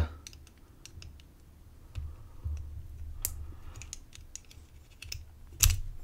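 Scattered small metal clicks and scrapes as a steel gut wrench works at the circlip on the brass plug of a padlock cylinder, trying to push it off. A sharp click about three seconds in and the loudest one a little before the end.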